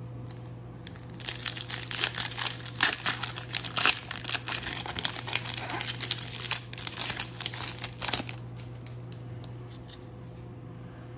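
Foil wrapper of a Topps Opening Day baseball card pack being torn open and crinkled in the hands, crackling from about a second in until about eight seconds in. A steady low hum runs underneath.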